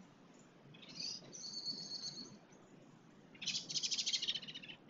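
Bird song: a thin, high chirping phrase, then a louder rapid high trill of about a second.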